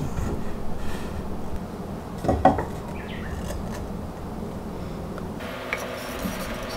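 Wooden boards handled and pressed against a square wooden post, with soft rubbing and a light wooden knock about two and a half seconds in as a board is set in place.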